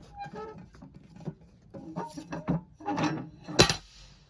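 Paper trail permit being handled and pushed into a permit drop box, with rubbing and scraping sounds and a sharp knock about three and a half seconds in as the box shuts.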